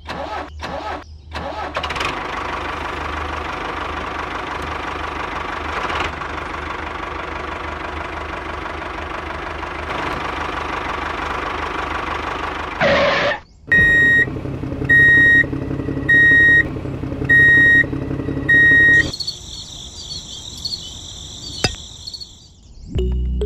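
A small single-cylinder tractor engine starts with a few short sputters, then runs steadily for about ten seconds. After a brief break a lower engine sound runs with a high beep repeating about once a second, five times, like a reversing alarm. A few seconds of high hiss follow near the end.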